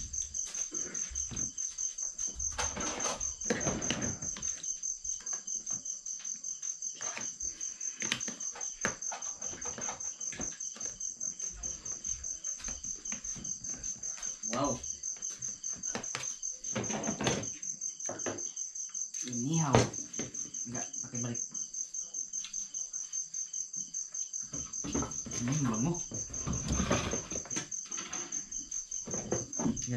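Crickets chirping in a steady, high-pitched, pulsing trill, with scattered clinks and scrapes of a spoon against pots and dishes.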